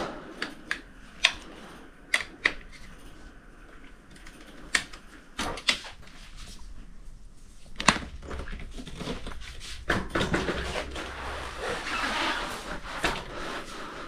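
Sharp clicks and knocks from a screwdriver and hands working on a bicycle's hydraulic disc-brake lever, then a stretch of rustling and knocking as the bike is handled.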